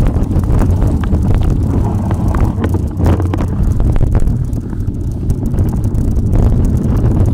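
Wind buffeting the microphone of a camera carried on a mountain bike ride, a dense low rumble. Scattered short clicks and knocks from the bike run over rough ground.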